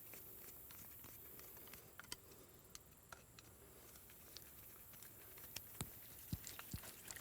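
Faint scattered clicks and light taps of small metal parts and hand tools being handled, with a few sharper taps in the last couple of seconds.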